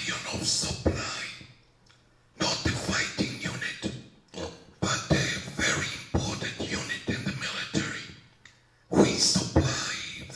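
A man lecturing into a handheld microphone, his voice coming in phrases with short pauses between them.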